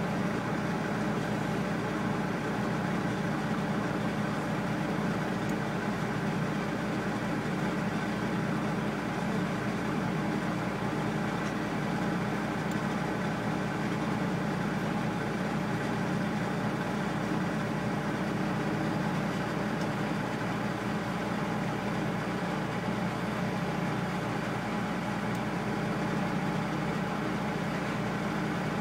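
Engine idling with a steady low hum that holds one pitch throughout, heard from inside a car's cabin.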